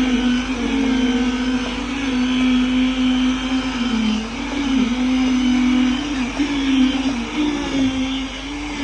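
A motor running with a steady hum, its pitch sagging briefly and recovering several times.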